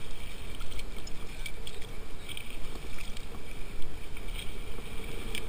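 Choppy seawater sloshing and lapping around a camera held at the water's surface, in an uneven, fluctuating wash with a few small splashes.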